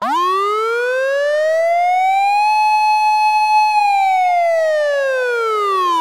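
A siren wailing: one slow rise in pitch over about two and a half seconds, a held top note for about a second, then a slow fall.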